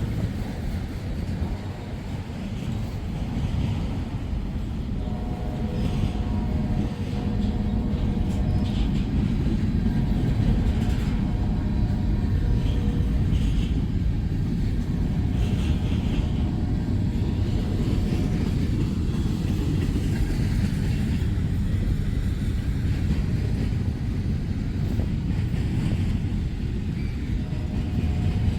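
Freight cars rolling past at trackside: a steady low rumble of steel wheels on rail, building over the first few seconds and then holding, with faint clicking over the rail joints. A faint set of steady tones comes and goes several times.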